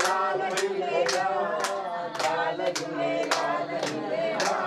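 A group of people singing together to steady rhythmic hand clapping, about two claps a second.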